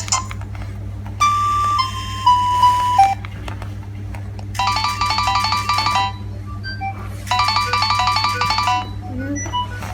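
Nokia 7250i mobile phone playing its built-in ringtones through its small speaker. A short falling phrase of three notes comes first, then a quick, bright multi-note melody is played twice, each time for about a second and a half.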